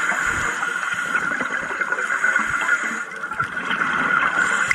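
Underwater ambience recorded on a reef dive: a steady hiss with many small scattered crackles and pops.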